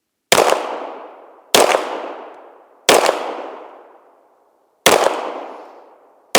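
SIG P320 Legion pistol fired five times at an uneven, unhurried pace, the last shot right at the end; each shot is sharp and loud, and its echo trails off over about a second.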